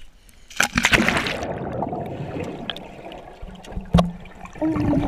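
Splash as the GoPro plunges into pool water about a second in, then muffled underwater gurgling and churning, with a sharp knock near the four-second mark.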